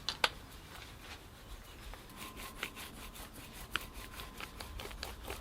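Faint rubbing with a few light clicks, from anaerobic sealant being rolled out and worked over the camshaft cover's mating surface.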